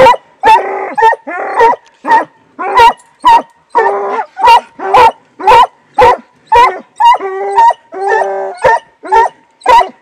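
Hunting dog barking steadily and loudly at a cornered raccoon, about two barks a second, some short and some drawn out longer.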